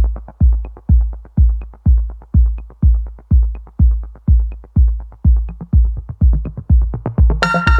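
Electronic music: a deep drum-machine kick beating steadily about twice a second, with faint ticks above it. A bright, sustained synth layer comes in near the end.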